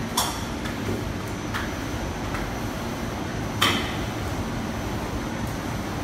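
Turntable pallet stretch wrapper running: a steady mechanical hum, broken by several sharp clicks. The loudest click comes about three and a half seconds in.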